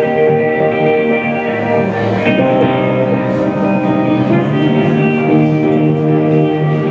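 Alt-rock band playing live, with guitars, keyboard, bass and drums sustaining chords at a steady, loud level.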